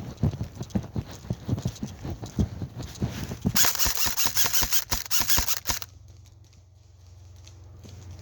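Rapid thudding footsteps, about three or four a second, like a player running with a body-worn camera jostling. A loud rustling hiss takes over about halfway through, then cuts off suddenly and leaves only a low hum.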